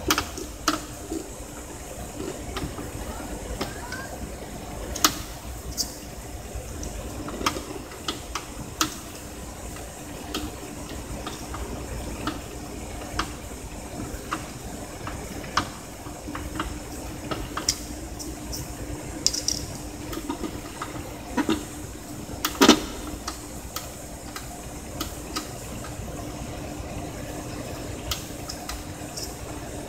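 A small hand-turned drill bit scraping and grinding into the plastic of a Canon PG-810 ink cartridge to widen its air vent hole, with irregular clicks and scrapes as it is twisted and the cartridge is handled. One louder knock comes a little past the middle, and a steady faint hum runs underneath.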